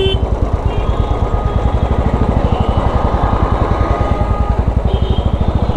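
Royal Enfield Classic 350's single-cylinder engine thumping steadily through an aftermarket exhaust while riding, a little bassy. Faint horns of other traffic sound briefly near the start and near the end.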